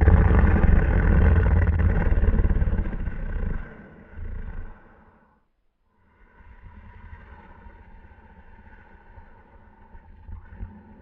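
Battery-powered snoring beetle toy playing its snore on nearly flat batteries. A loud, buzzy snore starts suddenly and lasts about four seconds, with a short second burst, then a brief pause. A quieter, drawn-out sound with a steady tone runs through the last five seconds.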